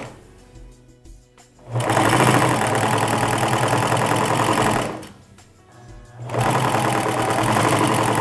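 Singer domestic sewing machine stitching a straight seam through layered lace and bra-cup fabric, in two runs of about three seconds each. The first run starts about two seconds in, pauses briefly a little past the middle, then the machine starts again.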